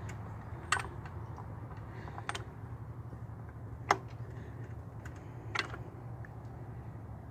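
Four short, sharp metallic clicks about a second and a half apart as a breaker bar and socket are worked onto a motorcycle's clutch hub nut, over a steady low hum.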